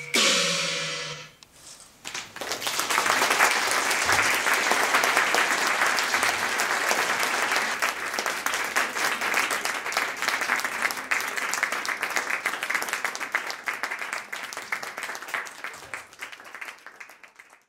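The Cantonese opera accompaniment ends with a last note ringing away in the first second. From about two seconds in, an audience applauds, and the clapping fades out near the end.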